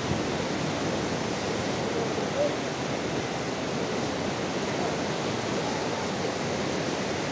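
Ganges river rapids rushing steadily: a constant, even wash of whitewater noise.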